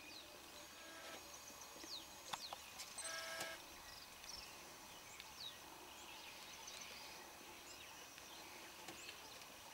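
Quiet bush ambience with many small birds calling: short, quick, falling chirps scattered throughout, a brief pitched call about three seconds in, and a few faint clicks.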